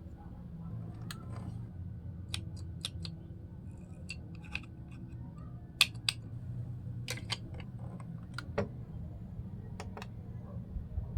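Technics SL-5 linear-tracking turntable being operated: irregular small mechanical clicks and clacks, the loudest about six seconds in, over a steady low hum.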